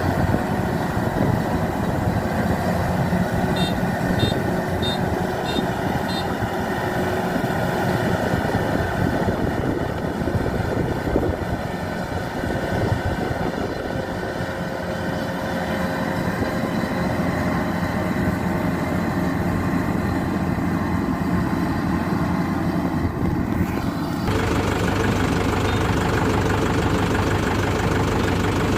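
A Kubota DC-93 combine harvester's diesel engine runs steadily under harvesting load. About four seconds in there is a short series of five high beeps. Near the end the engine sound changes abruptly and becomes deeper.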